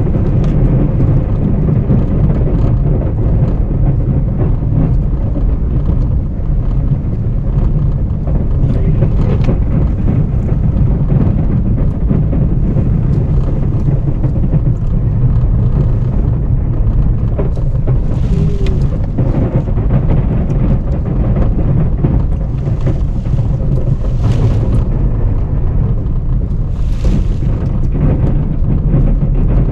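Ram 1500 Classic pickup truck running and driving with a snow plow, a steady low engine and road rumble, with a few brief faint hissy sounds over it.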